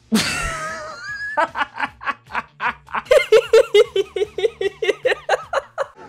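A man laughing hard. After a drawn-out sliding opening sound, a fast, even string of loud ha-ha bursts starts about a second and a half in, about five a second.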